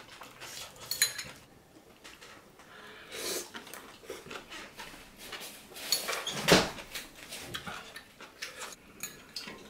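Metal chopsticks and spoons clicking and scraping against a griddle pan and bowls during a meal, scattered light clinks, with one louder knock about six and a half seconds in.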